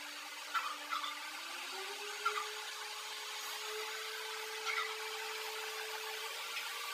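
Small electric motor whining steadily; its pitch glides up about a second in and then holds. A few short, faint chirps sound over it.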